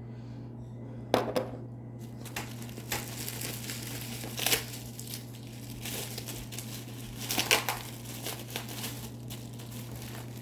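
Packaging being crumpled and rustled by hand as the next item is unwrapped, in irregular bursts with the loudest crinkles about a second in, midway, and around three quarters through.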